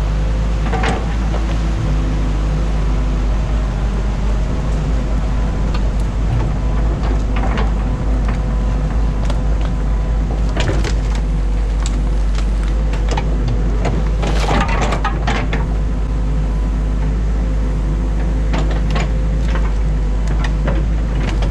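Excavator's diesel engine running steadily under load, heard from inside the operator's cab, with a steady hydraulic whine. Scattered knocks and cracks, the loudest about two-thirds of the way through, as the bucket works and dumps mud and branches.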